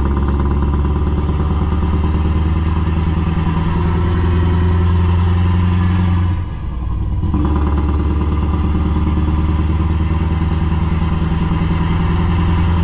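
Scania S770's 16.4-litre V8 diesel pulling under load, heard from inside the cab as a steady deep drone. About six seconds in it drops away briefly for a gear change, then pulls again.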